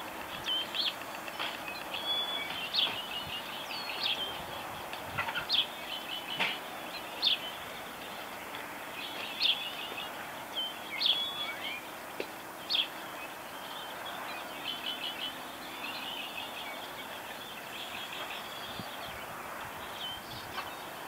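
Small birds chirping and calling at sunrise, a dawn chorus: short sharp high notes every second or so, with stretches of quicker twittering in between, over a steady background hiss of outdoor noise.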